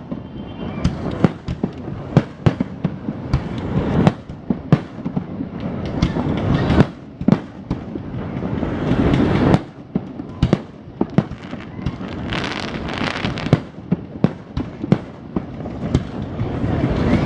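Aerial fireworks display: a rapid, irregular run of sharp bangs and booms, several a second, over rolling low rumbles that swell and fade, with a denser stretch of high, hissing noise about twelve seconds in.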